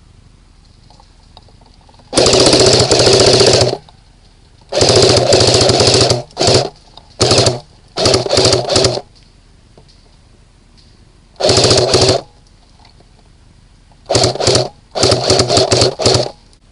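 Electric airsoft gun firing on full auto, close by: the gearbox cycling so fast it buzzes. There are about eight bursts, the longest lasting about a second and a half, the rest short stabs of a few tenths of a second.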